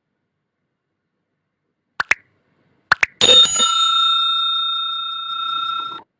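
Sound effects for a subscribe-button animation: two quick double clicks, like mouse clicks, then a bright bell ding that rings on for about three seconds and cuts off suddenly.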